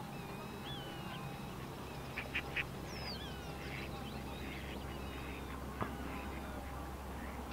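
Wetland birds calling: a scatter of thin, gliding whistled calls, with three short, louder calls in quick succession about two seconds in. A single sharp click comes near the six-second mark.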